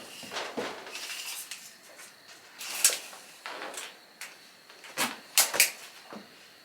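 Irregular knocks, clicks and light scrapes of things being handled. There is a sharp clack a little under 3 s in and a cluster of loud clacks around 5 to 5.5 s.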